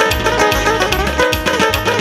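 Lively traditional dance music played loud, a fast melody over a steady, driving drum beat.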